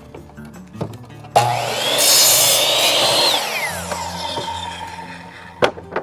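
Ryobi TSS102L 10-inch sliding compound miter saw switched on about a second and a half in. Its motor whine rises as the blade spins up and cuts through a board, then falls away as the trigger is released and the blade coasts down. A sharp knock comes near the end.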